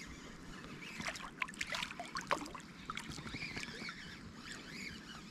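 Water splashing and sloshing in a cluster of irregular splashes from about one to three and a half seconds in, over a steady background hiss.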